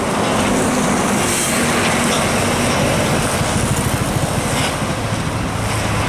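Tour bus driving past close by, its engine running and tyres on the road giving a steady loud traffic noise.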